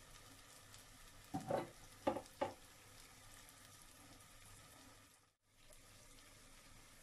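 Potato bites deep-frying in hot oil in a small pan, a steady faint sizzle. Three short louder sounds come between about one and two and a half seconds in, and the sound cuts out for a moment about five seconds in.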